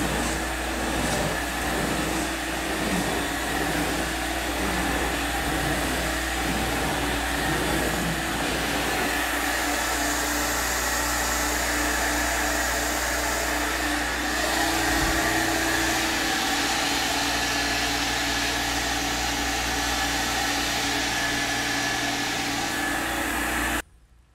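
Carpet cleaning extractor's vacuum running steadily as its wand is drawn over the carpet. The sound cuts off suddenly just before the end.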